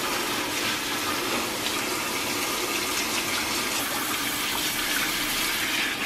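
Handheld shower head spraying a steady stream of water, rinsing shampoo out of a small dog's wet fur around its face and head.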